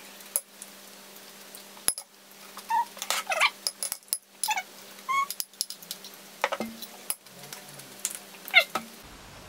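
Eating with a spoon from a ceramic bowl: the spoon clicks and scrapes against the bowl a few times, with several short, high squeaky sounds scattered through.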